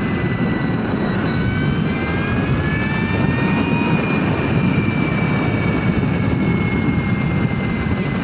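Energica electric motorcycle accelerating at highway speed: heavy wind rush on the microphone, with a thin high whine that rises in pitch over the first few seconds and then levels off.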